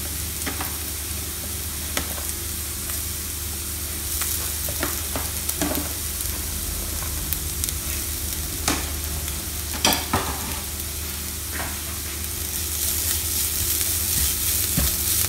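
Shallots and curry leaves sizzling steadily as they fry in coconut oil in a nonstick pan, with a metal spoon scraping and tapping against the pan a few times as grated coconut is added and stirred in. The sizzle grows louder near the end.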